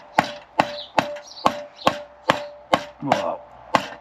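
Mallet knocking the joints of a green chestnut chair together: a steady run of about nine sharp knocks, a little over two a second, each with a short ringing note.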